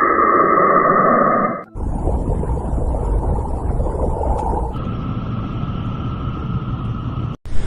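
Space radio-wave recordings converted into sound: a steady rumbling hiss with a faint held tone, cut abruptly to a different-sounding recording about two seconds in, again near five seconds, and once more near the end.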